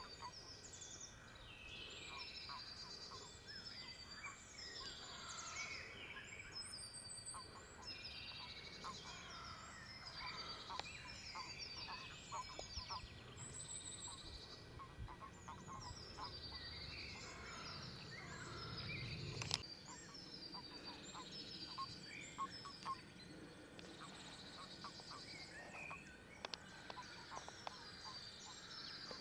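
Breeding chorus of pond frogs: many short clucking calls overlapping continuously, with higher chirping calls above them. One sharp tap about two-thirds of the way in.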